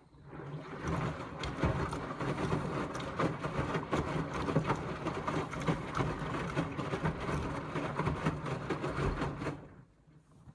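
Indesit washing machine drum turning during the rinse: the motor hums under the sloshing and flopping of water and a full load of wet cotton. It starts just after the beginning and stops sharply about a second before the end.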